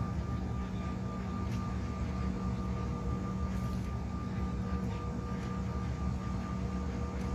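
Steady jet engine and cabin noise inside a Bombardier CRJ1000 taxiing to the runway, its twin rear-mounted GE CF34 turbofans at low taxi power giving an even hum with a thin whine over it.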